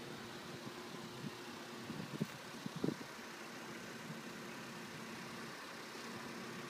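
Steady low mechanical hum, with a few short knocks about two to three seconds in.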